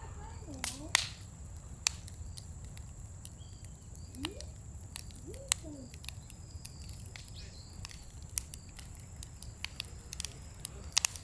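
Scrap-wood fire crackling, with sharp irregular pops and snaps over the low rumble of the flames.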